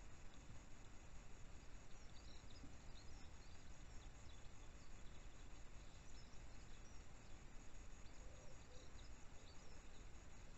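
Faint outdoor ambience: a steady low hiss with many faint, short, high-pitched chirps from distant small birds scattered through it.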